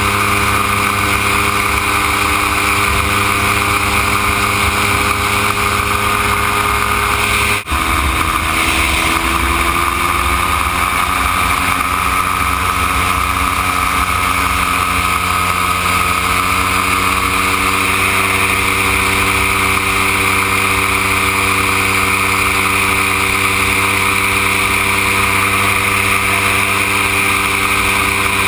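Dominator gyroplane's engine and propeller droning steadily in flight, heard from on board. There is a brief dip about eight seconds in, after which the engine note shifts slightly.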